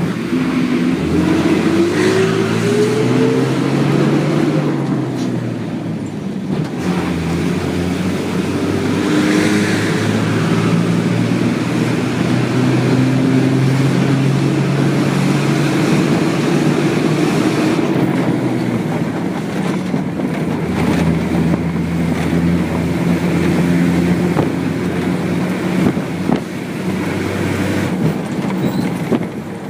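Bus engine running as the bus travels, with road noise. The engine pitch climbs as it accelerates, drops about five seconds in, climbs again, then holds steady.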